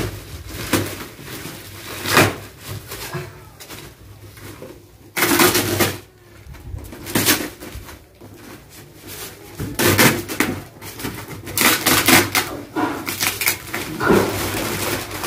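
Packing tape and cardboard of a long shipping box being cut and ripped open by hand, in irregular short tearing bursts with pauses between them.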